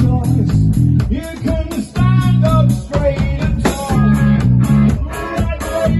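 Live rock band playing: electric guitar and bass over a steady drum beat, with a voice singing a line about two seconds in.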